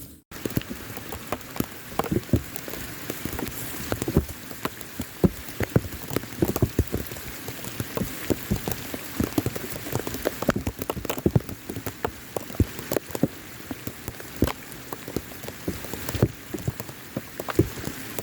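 Rain falling steadily: an even hiss of rain with many separate, close drop impacts, several a second. It starts abruptly after a brief silence.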